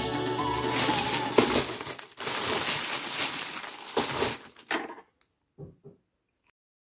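Background music that stops about a second and a half in, then a clear plastic bag full of loose Lego bricks being squeezed and handled: the bag crinkles and the plastic pieces shift and click against each other. It goes quiet about five seconds in, apart from a couple of soft knocks.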